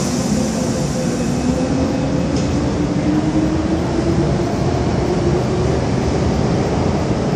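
MTR M-Train electric multiple unit moving alongside the platform: a steady rumble of the train, with a motor tone that slowly rises in pitch.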